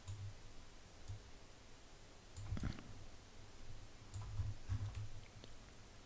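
A few faint, scattered computer mouse clicks.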